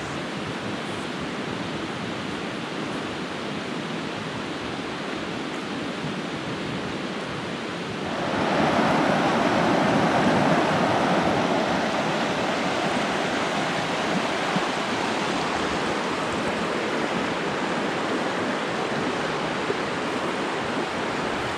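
Steady rushing of a creek's flowing water, stepping up louder about eight seconds in and then holding.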